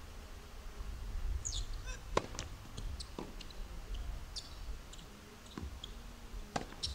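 Tennis rally on a hard court: a tennis ball struck by rackets and bouncing, heard as several sharp knocks, two of them about a second apart.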